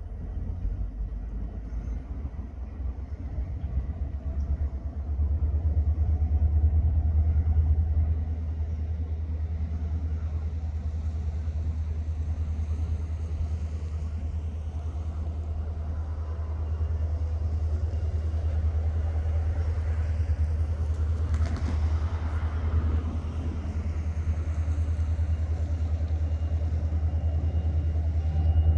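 Slow-moving Escanaba & Lake Superior Railroad freight train rolling past with a steady low rumble that grows louder about five seconds in.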